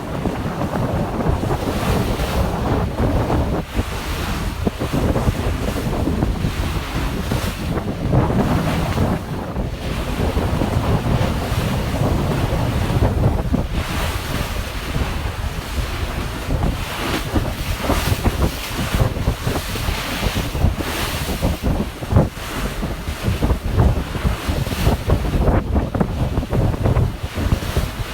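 Wind buffeting the microphone in uneven gusts over the steady rush of water around a moving ferry.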